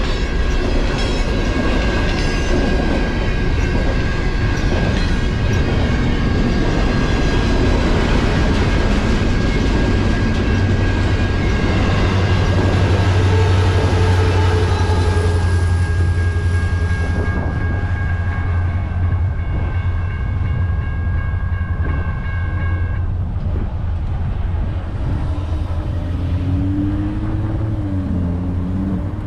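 BNSF manifest freight train rolling past close by: a loud, steady rumble and clatter of rail cars on the track. Several steady high ringing tones sound over it until about three quarters of the way through. A deep drone grows stronger from about a third of the way in.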